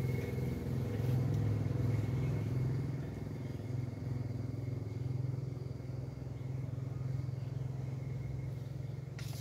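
An engine runs steadily nearby with a low hum that slowly fades, and there is a single sharp click near the end.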